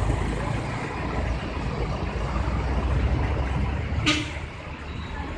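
Large bus's diesel engine rumbling steadily, with a short, sharp air-brake hiss about four seconds in.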